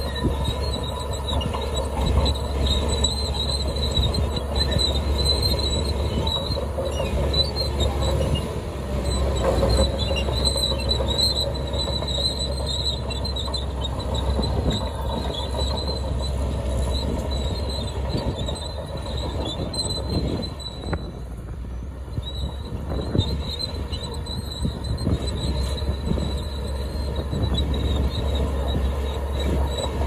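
Shantui crawler bulldozer's diesel engine running under load as it pushes soil, with its steel tracks squealing and clanking. The sound eases a little about two-thirds through.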